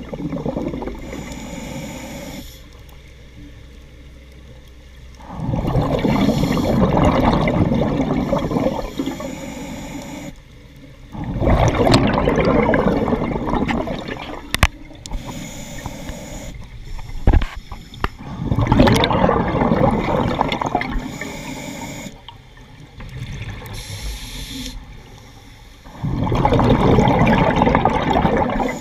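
Scuba diver breathing underwater through a regulator: four loud bursts of exhaled bubbles, each a few seconds long and about seven seconds apart, with a quieter hiss of inhalation between them. A couple of sharp clicks fall between the second and third breaths.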